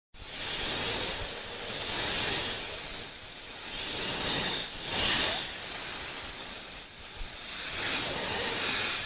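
Snake hissing: a long continuous hiss that begins suddenly and swells and eases several times, loudest about two, five and eight seconds in.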